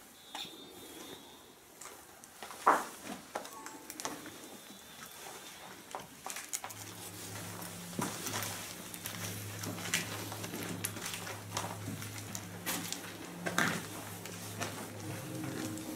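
Scattered clicks, scuffs and knocks of people moving and handling gear in a small echoing room, the loudest a single sharp click a few seconds in. A little under halfway through, a low steady droning background music comes in and holds.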